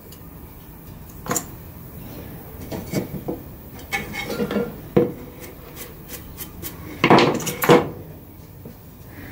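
Pieces of painted wood being handled on a wooden workbench: a broken-off strip is lifted and set down, with scattered knocks and scraping. The loudest knocks come in a quick cluster about seven seconds in.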